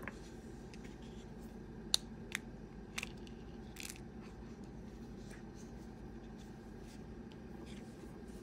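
The broken plastic shell of a Hubsan Zino Mini Pro drone battery being pried apart by hand: sharp plastic clicks and snaps about two, two and a half and three seconds in, a short scrape near four seconds, then a few faint ticks, over a low steady hum.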